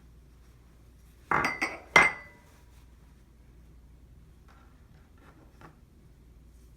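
Kitchenware clinking: three quick clinks with a short ring, the third the loudest, then a few faint taps.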